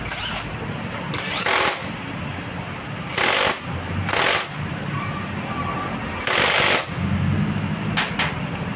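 Cordless impact wrench hammering in four short bursts, driving on the nut that holds the clutch bell on a scooter's CVT driven pulley.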